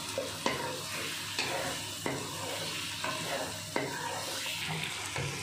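Raw chicken pieces and sliced onions sizzling in oil in a nonstick wok, stirred with a wooden spatula that knocks and scrapes against the pan about once a second.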